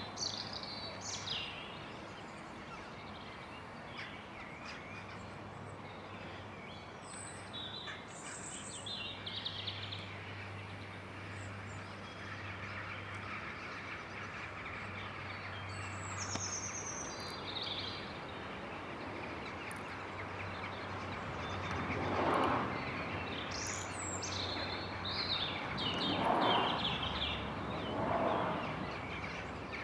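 A flock of birds chirping now and then, in short high calls, over a steady outdoor background hiss with a low hum. Three louder swells of noise come in the latter part.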